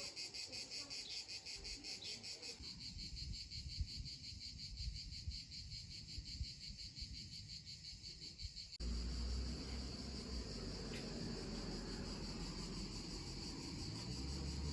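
Insects chirring in a rapid, evenly pulsing chorus. About nine seconds in, the sound cuts to a different take: the chirring carries on, now over a low rumble like wind on the microphone.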